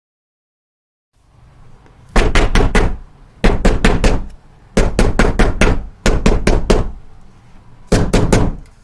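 Knocking on a door: five loud rounds of three or four quick knocks each, coming about a second and a quarter apart.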